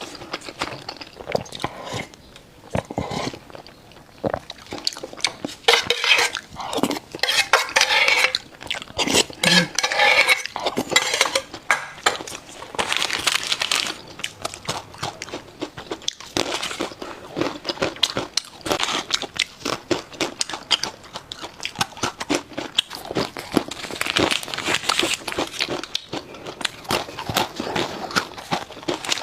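Close-miked eating: crunching and chewing with clinks of cutlery against dishes, a dense run of small clicks and crackles, busiest in a few patches.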